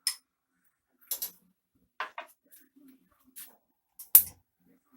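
Kitchen utensils and containers being handled: a few short clicks and knocks with quiet between them, the loudest one about four seconds in.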